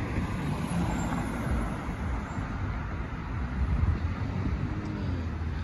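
Road traffic on a multi-lane arterial road, cars driving past with a steady mix of tyre and engine noise. One vehicle passes louder about four seconds in.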